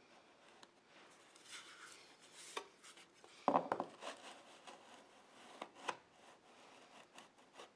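Drywall knife scraping wet joint compound along a baseboard molding: a few short, faint scrapes and clicks, the loudest about three and a half seconds in.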